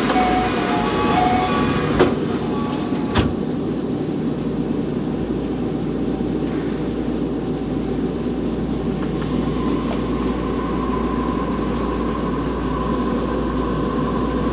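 Toei 12-600 series linear-motor subway car running through the tunnel, heard from inside the car as a steady rumble. A few sharp knocks come in the first few seconds, and a faint steady whine comes in about ten seconds in.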